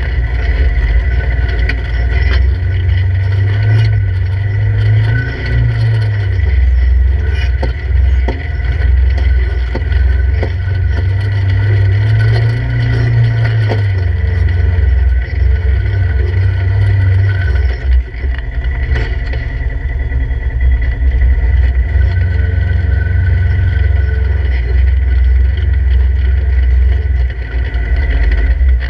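Polaris RZR 1000 side-by-side's parallel-twin engine running at low speed while crawling over rock, its pitch rising and falling with the throttle, heard from inside the open cab. A few short knocks come through now and then.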